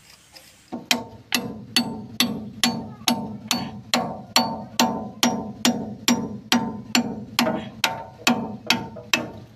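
Hammer blows on steel, evenly paced at about two a second with a brief metallic ring after each, starting about a second in: a combine's steering arm being knocked onto its spindle.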